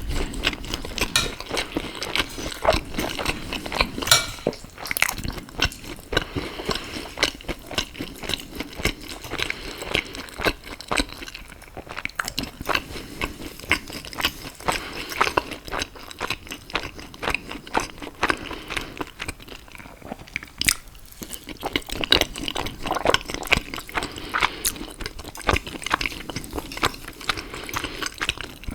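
Close-miked chewing of soft food, pizza or sauced pasta: a dense, irregular run of wet mouth clicks and smacks, with brief pauses between mouthfuls.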